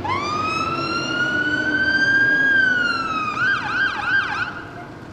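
Dennis Sabre fire engine's electronic siren sounding: a long wail that rises sharply, climbs slowly and then falls, switching about three seconds in to a fast yelp of about three sweeps a second, then fading away.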